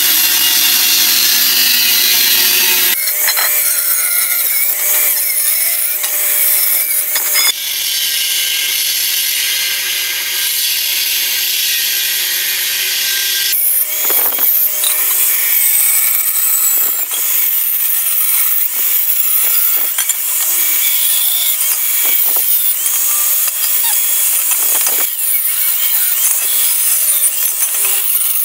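Handheld electric angle grinder with a thin cut-off disc cutting through a rusty square steel bar: a loud, high-pitched grinding whine that shifts abruptly in pitch and loudness several times and grows more uneven in the second half.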